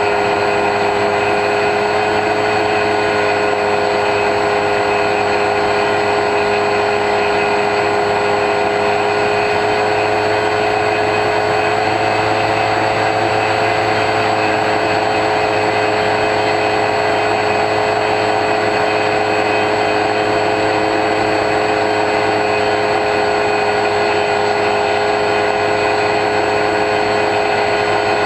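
Steady whine of the X-UAV Talon's electric motor and pusher propeller held at an even cruise throttle, picked up by the onboard camera, with a rushing noise under it.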